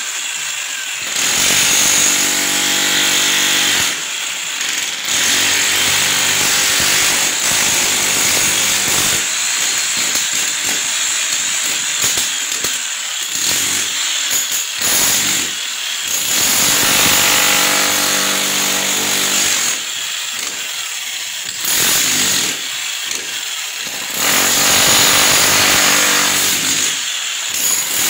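Handheld power tool running in repeated runs of a few seconds with short pauses between, a motor hum under harsh cutting or chiselling noise.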